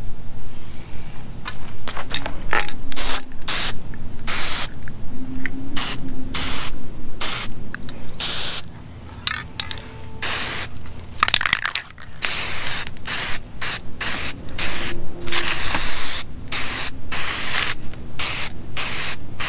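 Aerosol spray-paint can sprayed in many short hissing bursts, with the sprays coming longer and closer together in the second half.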